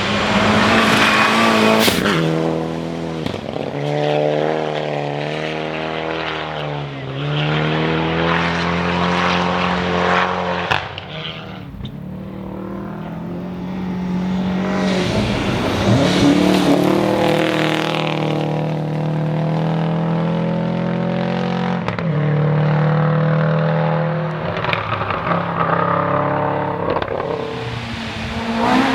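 Historic rally car engines at full throttle, the revs climbing and dropping repeatedly through gear changes as the cars pass. The sound eases off briefly about eleven seconds in, then another car's engine builds up loud again.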